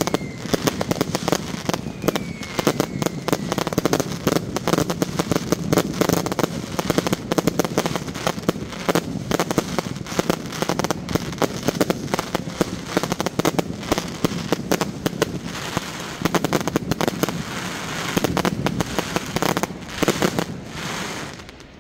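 Fireworks going off in a dense, rapid crackle of many small pops a second, dying away just before the end.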